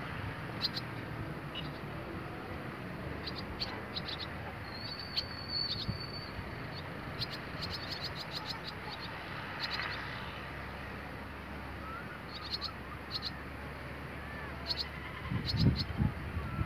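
Barn swallows, fledglings and adults on a wire, calling in quick series of short, high chirps, with one held high whistle about five seconds in. A steady low background hum runs under the calls, and there are a few low thumps near the end.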